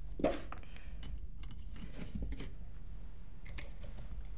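Light, irregular clicks and ticks of small screws and metal parts being handled by hand as a paintball pistol's stock assembly is fitted, over a steady low hum. A brief louder sound comes just at the start.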